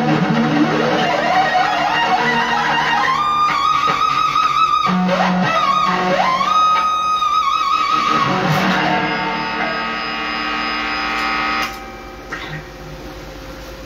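Overdriven electric guitar lead through a JOYO amp head and cabinet: notes slide up into long bends held with vibrato, then a long ringing note that cuts off abruptly near the end, leaving a steady amp buzz and hiss.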